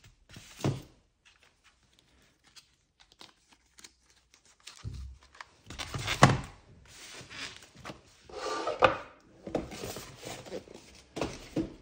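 Cardboard box and packaging being handled: scattered knocks and clicks, then rustling and scraping from about six seconds in.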